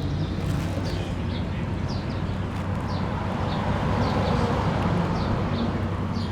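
Steady outdoor background noise with a low hum, and a series of short, high chirps about twice a second, like a small bird calling.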